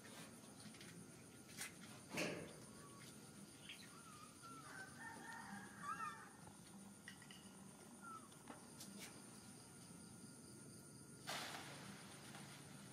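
Faint animal calls: a few short wavering cries about five to six seconds in, with a couple of soft knocks over a quiet background.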